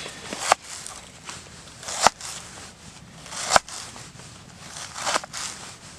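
Kitchen knife chopping through an onion onto a cutting board: a sharp knock about every one and a half seconds, each led by a short crunching slice.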